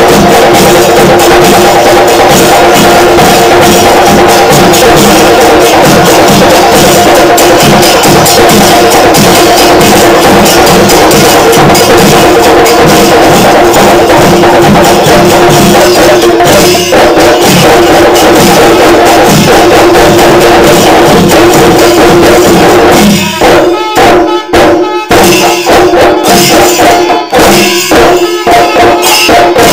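Chenda drums beaten with sticks in a Panchari melam ensemble, with the metallic jingle of elathalam hand cymbals over a dense, continuous roll. About three-quarters of the way through, the roll opens out into separate, distinct strokes with short gaps between them.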